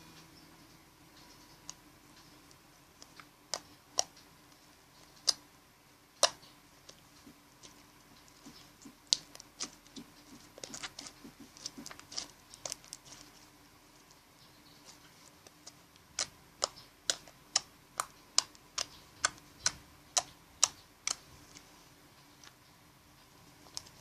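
Freshly made homemade slime being squeezed and poked by hand, giving sharp clicking pops: scattered at first, then a run of about two a second.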